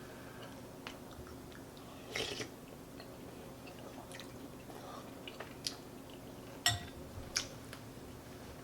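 Close-miked eating of chicken noodle soup: quiet chewing with scattered sharp mouth clicks, a short cluster about two seconds in and the loudest click a little after six and a half seconds.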